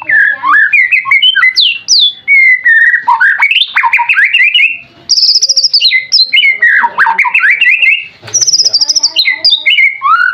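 White-rumped shama (murai batu) singing a loud, fast, varied song of whistles, rapid trills and sweeping notes with hardly a pause, broken only briefly about five and eight seconds in.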